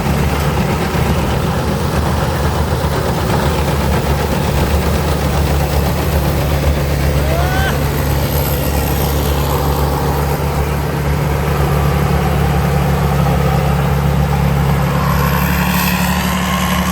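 Combine harvester running steadily, its six-cylinder 6HK diesel engine droning at an even pitch.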